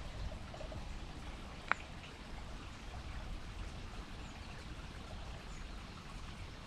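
Steady outdoor background noise, a low rumble that sits mostly at the bottom of the range, with a single short sharp click about a couple of seconds in.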